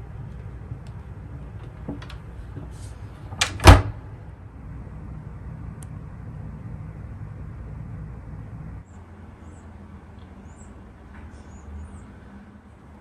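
Cat-door flap knocking twice in quick succession, the second knock the louder, as it swings. A low steady hum underneath stops about nine seconds in.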